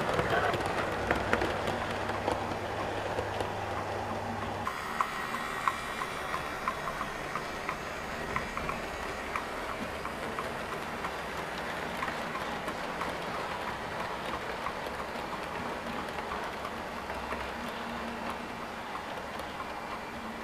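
Model trains running on a layout: a steady rumble of small wheels on the track with scattered clicks as the wheels cross rail joints and points. A low steady hum that stops abruptly about five seconds in.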